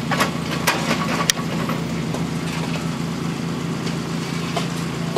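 An engine idling steadily, with a few sharp metallic clicks in the first second and a half as the hand crimping tool squeezes an aluminum connector onto the service cable.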